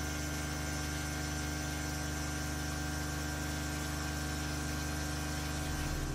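A 32 mm indexable-insert end mill (BIG DAISHOWA Fullcut Mill type FCM) cutting medium-carbon steel on a machining centre. The cut makes a steady drone with several constant low tones under a high hiss.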